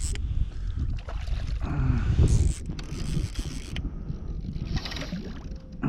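Creaking and rubbing of a kayak and fly-fishing gear during a fight with a hooked fish, with short squeaky glides and bursts of hiss.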